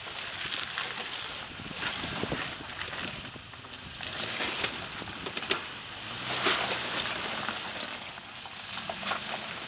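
Off-road truck tires crunching and grinding slowly over rock and loose gravel, a crackly noise full of small clicks and pops that grows louder a little past the middle.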